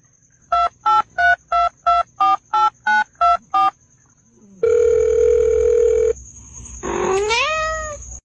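Phone keypad tones: about eleven quick two-tone beeps at slightly differing pitches, as if the cat's paw pads were buttons being dialled, then a steady tone with a hiss lasting about a second and a half. Near the end a cat meows once, rising in pitch.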